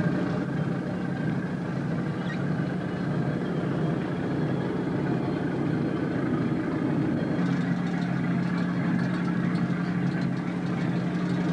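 Boat engine idling steadily, a continuous even hum whose tone firms up slightly about seven seconds in.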